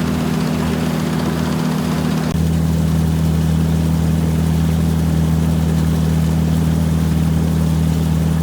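Combine harvester engine running with a steady drone. About two seconds in, the hum shifts and gets a little louder.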